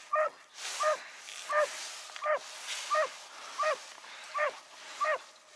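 Hunting dog giving voice as it swims after a wounded duck: short, high yelps, about eight of them, evenly spaced roughly every 0.7 s, each sliding down in pitch.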